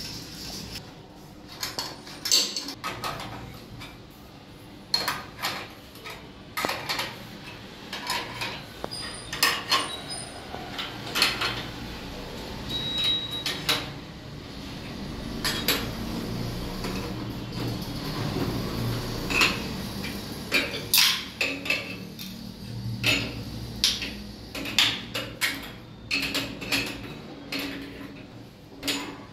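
Metal plumbing fittings of a wall mixer clinking, clicking and tapping at irregular intervals as they are handled and screwed together, with a few brief metallic rings.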